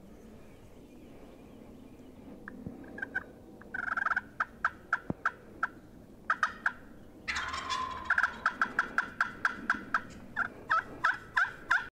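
Wild turkey calling: runs of quick, sharp repeated notes, with a short burst about four seconds in and a longer, denser run from about seven seconds to the end.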